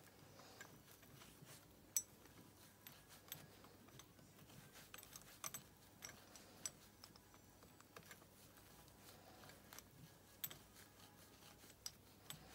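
Faint scattered metallic clicks and ticks from a steel flywheel puller plate and its bolts being handled and threaded by hand into the flywheel. The sharpest click comes about two seconds in.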